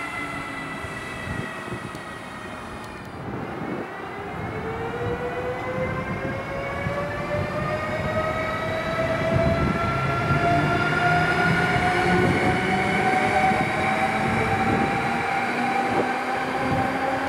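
Passenger train hauled by Siemens Vectron class 193 electric locomotives, the electric traction whining over the rumble of the wheels. The whine drops for the first few seconds, then climbs steadily in pitch as the train picks up speed.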